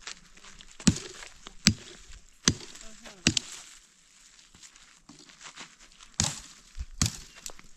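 Chopping blows into a wooden branch to cut a walking stick: four sharp strikes about one every 0.8 s, a pause of a couple of seconds, then two more.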